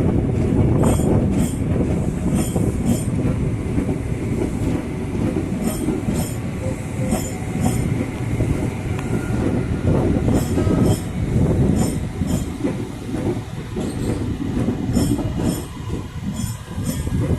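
Electric commuter train passing close by: a steady heavy rumble of wheels on rail, with sharp clacks, often in pairs, as the bogies cross rail joints.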